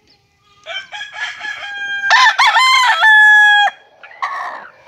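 Lemon cross gamefowl rooster crowing once: a crow of about three seconds that climbs and wavers in the middle, then ends on a long held note that cuts off sharply. A short rough call follows near the end.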